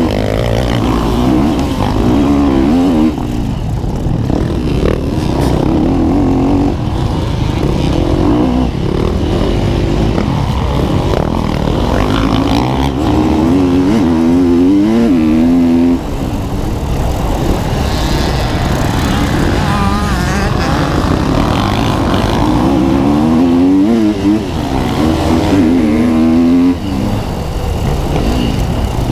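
Four-stroke KTM 250 dirt bike engine run hard, its pitch climbing again and again as it revs up through the gears, with the throttle chopped sharply several times between pulls.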